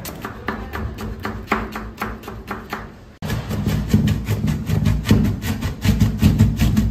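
A large broad-bladed knife chops tomatoes, onions and parsley on a cutting board: quick, regular knocks of the blade on the board, about three to four a second, with a brief break about three seconds in. Music plays underneath.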